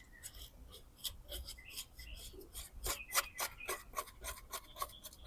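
A stiff parts-cleaning brush scrubbing stripper-softened paint off a car wheel rim in short, quick, irregular strokes, busier in the second half.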